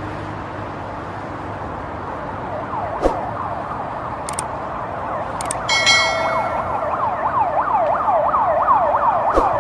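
Fire engine siren on a fast yelp, its pitch rising and falling in quick sweeps that grow louder and faster from about six seconds in, to about two and a half a second, over a steady low engine and road rumble. A short steady horn tone sounds about six seconds in, and a few sharp clicks are heard.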